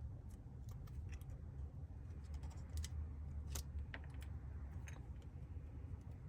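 Irregular light clicks and taps of small metal tools and phone parts being handled, a few a second, over a steady low hum.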